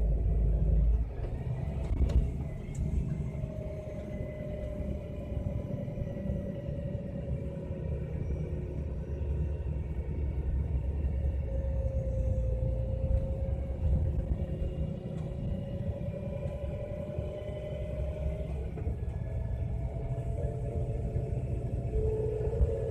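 MAN Lion's Coach bus descending with its retarder braking: a low rumble with a steady whine that slowly drifts up and down in pitch. The level drops slightly about a second in.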